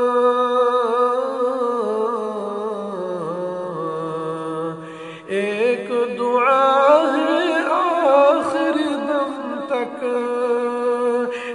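A man singing an Urdu naat without instruments, drawing out long, wavering melodic notes over a steady hummed vocal backing. The voice drops away briefly about five seconds in, then comes back in a higher, more ornamented phrase.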